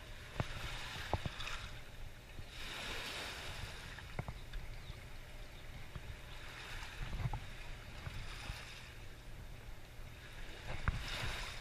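Steady rushing outdoor noise of wind and moving water that swells and eases every few seconds, with small scattered clicks from hands handling fishing line and tackle.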